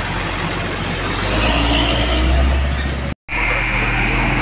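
Diesel engine of a heavy cargo truck running close by, its low rumble building about a second and a half in. After a brief dropout just past three seconds in, a steady engine hum.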